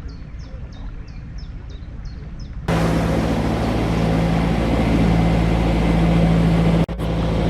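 Narrowboat engine running steadily while a bird chirps repeatedly, a few chirps a second. About two and a half seconds in the sound jumps to a louder take, with the engine's steady hum stronger under a steady hiss.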